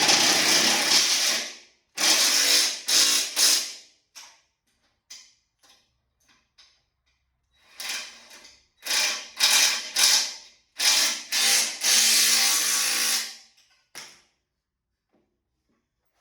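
Ratchet wrench clicking in quick bursts of strokes, stopping and starting several times, as a threaded fitting is tightened; it stops near the end.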